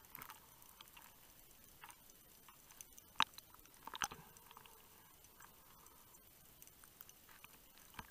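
Faint underwater clicking and crackling, scattered and irregular, with two sharper clicks a little over three seconds and about four seconds in.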